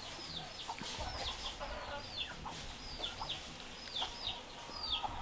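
A bird chirping over and over in short, high, falling notes, about two a second.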